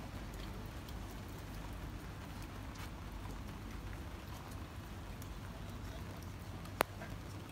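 Steady hiss of light rain on a wet paved street, with faint scattered ticks and one sharp click near the end.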